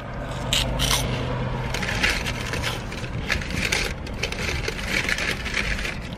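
Paper fast-food bag rustling and crinkling as a hand digs into it, with chewing. The crackles are irregular and thicken from about two seconds in.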